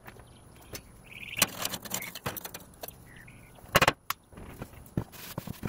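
Metal clinks, knocks and scrapes as the cooking grate of a Big Green Egg ceramic kamado grill is lifted out with its cast-iron top vent resting on it. The knocks are scattered and uneven; the loudest comes a little before four seconds in.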